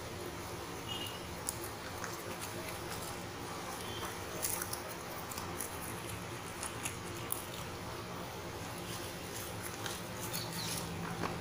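Clear packing tape crackling as it is peeled off a cardboard shipping box, with the cardboard flaps rustling as they are handled, in scattered short crackles and clicks. A steady low hum runs underneath.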